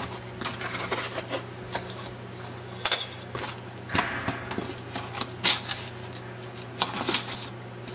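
Fanfold foam insulation board crackling and rustling as it is bent back along a scored line and split through with a wooden ruler, with irregular sharp snaps and taps spread over several seconds.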